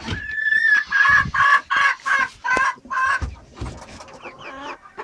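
Silkie chicken calling loudly: one drawn-out call, then a run of about seven short, sharp calls at roughly three a second, trailing off into fainter clucks near the end.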